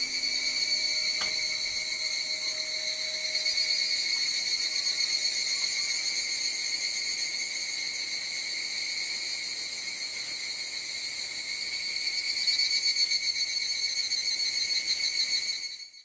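Evening chorus of higurashi cicadas: a steady shrill insect trilling that swells louder twice and fades out at the very end.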